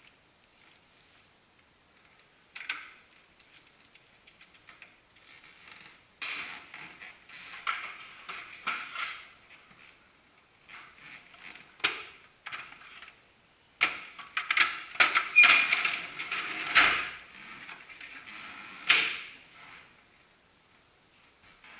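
Handling noise from an Olivetti d-Copia 35 photocopier as its parts and front cover are put back and shut: scattered plastic clicks, knocks and clatter. The noise gets busier in the second half, with a heavier thump a few seconds before the end.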